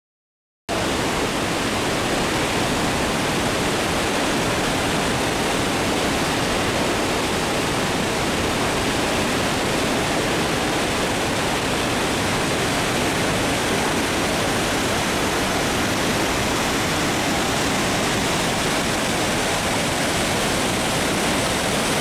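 Mountain stream rushing steadily over boulders as a small cascade of white water, starting abruptly about a second in.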